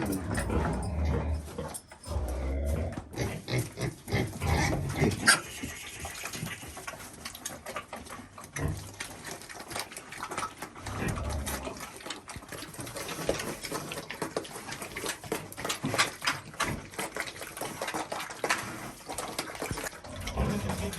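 A dog, with many small clicks and crackles throughout and heavy low thuds in the first few seconds.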